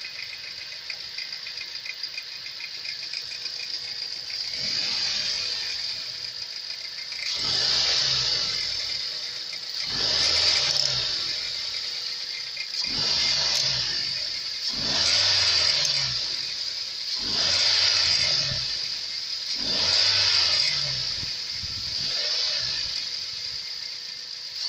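Mazda 3 engine idling, then revved in short blips about every two and a half seconds, about eight times, from about five seconds in. It is being run to bring out a knock that the owner reports in the engine.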